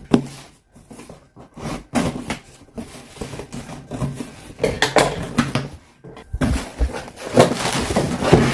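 Cardboard shipping package being opened and handled: irregular scrapes, rustles and knocks, with a low thud partway through and louder handling near the end.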